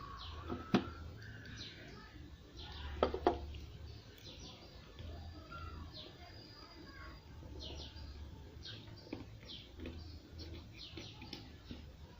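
Small birds chirping again and again in quick high notes, with a few sharp clicks or taps and a low hum that switches on and off.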